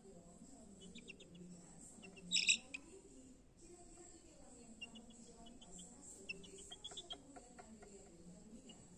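Young chicken chick peeping: scattered short, high cheeps and one louder call about two and a half seconds in, over faint background voices.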